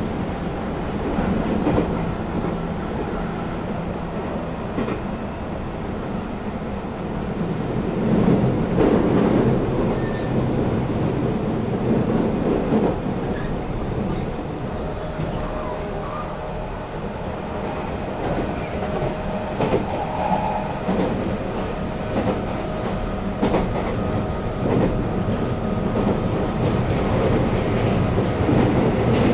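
JR West 221-series electric train running at speed, heard from inside the passenger car: a steady rumble of wheels on rail, with irregular clacks as the wheels cross rail joints.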